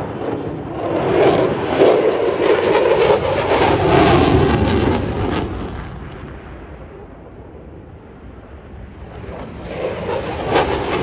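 Military jets making low passes: loud rushing jet noise with crackle that fades away over several seconds, then a second pass builds up loud again near the end.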